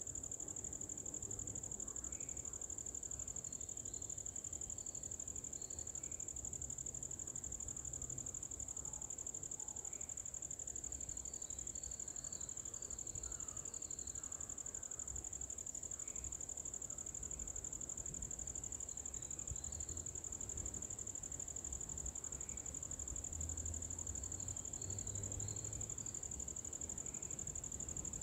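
A steady, high-pitched insect drone that never lets up, with faint short chirps scattered over it.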